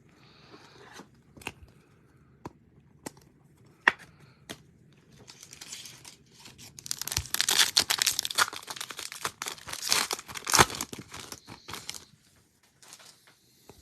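Wrapper of a football trading-card pack being torn open and crinkled: dense rustling from about six seconds in until near the end, after a few scattered clicks and taps from handling.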